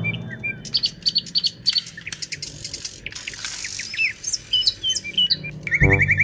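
Birds chirping: many short, quick chirps and whistles, with a rapid trill near the end. Background music is briefly heard at the start and comes back in near the end.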